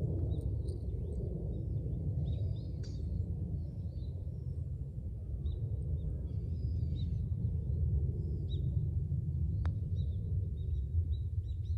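Outdoor ambience: a steady low wind rumble on the microphone with small birds chirping on and off, and a single sharp click near the end.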